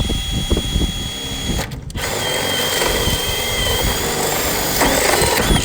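Power drill boring a hole through the sheet-metal roof, running with a steady high whine. It runs briefly, pauses just under two seconds in, then runs again longer and cuts off at the end.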